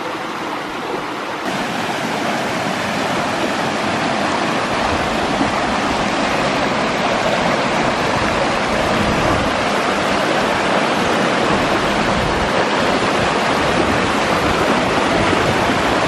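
Rushing stream water tumbling over boulders, a steady full hiss that grows a little louder over the first few seconds.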